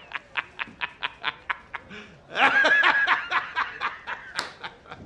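A man laughing hard in rapid 'ha-ha-ha' bursts, about four or five a second, swelling into a louder, longer peal a little over two seconds in, then trailing off.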